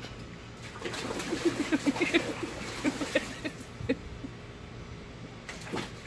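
A dog splashing and pawing at the water of a plastic kiddie pool, giving a quick run of short grunts and whines, busiest between about one and four seconds in.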